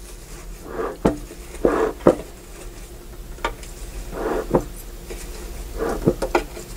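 Dry timothy hay rustling and crackling as it is stuffed by hand into a lit metal bee smoker, with about half a dozen sharp knocks and clinks from the smoker's can. The hay is burning down fast, so more is being packed in to keep the smoke going.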